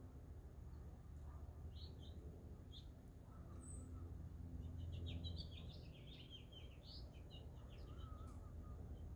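Faint chirping of small songbirds: scattered short chirps, then a quick run of twittering notes about five to seven seconds in, over a steady low background hum.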